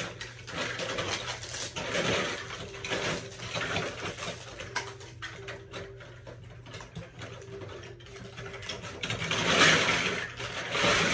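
Plastic pin packaging being handled and opened: irregular rustling and crinkling with small clicks, loudest about nine to ten seconds in, over a steady low hum.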